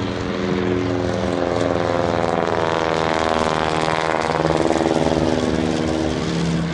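Piston engines of low-flying vintage propeller biplanes. The engine note swells and its pitch drops as a plane passes, loudest about four to five seconds in.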